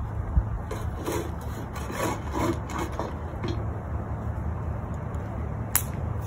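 A metal coal shovel scraping and scooping hot coals in a metal fire pit: a run of rough scrapes over the first few seconds, then a single sharp clink near the end, over a steady low background rumble.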